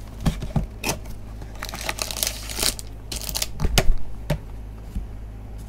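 Plastic shrink-wrap being torn and crinkled off a trading-card hobby box, then the cardboard box handled and its lid opened, with scattered clicks and a louder knock about four seconds in.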